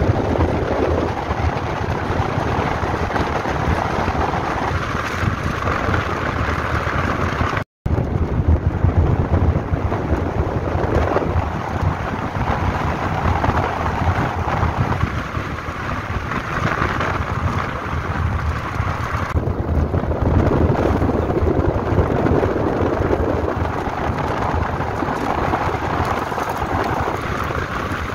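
Wind buffeting the microphone and tyres running on a gravel road, heard from outside the window of a moving car. The sound cuts out for an instant about eight seconds in.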